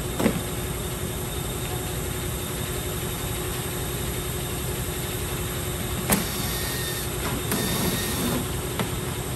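Steady workshop background noise, with a few sharp clicks and knocks of tools on the car's underbody while the lower engine cover's 10 mm bolts are worked loose. About seven seconds in, a small motor whines briefly twice.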